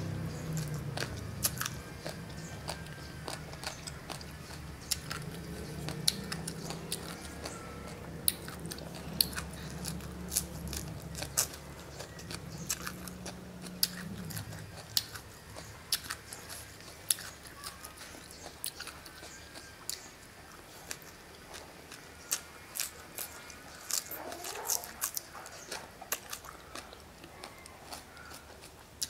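Close-up eating sounds of a person chewing spicy noodles and raw shredded green papaya salad: many irregular crisp crunches and wet mouth clicks. A steady low hum runs underneath and stops about halfway through.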